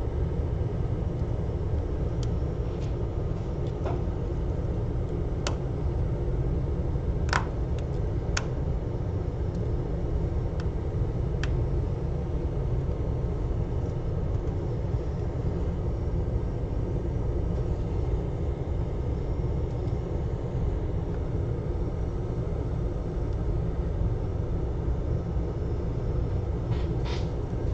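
Steady low background rumble with a few sharp clicks and taps, about five seconds in and again near the middle, as the glass front panel of an iPad mini is handled and pressed into its frame.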